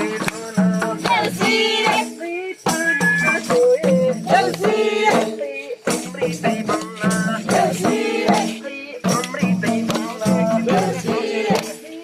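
Voices singing a Nepali deusi bhailo song, with shaken rattling percussion keeping the beat.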